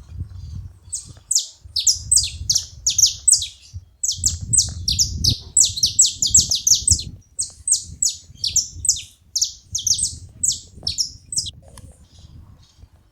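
Saffron finches calling together: a rapid run of sharp, falling notes, several a second, with a short break about four seconds in, thinning out near the end.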